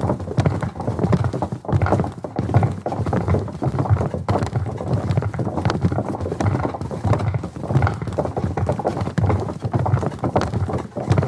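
Footsteps of a large group of soldiers crossing a wooden bridge: many boots falling out of step on hollow timber planks, a dense, continuous patter of thuds and knocks.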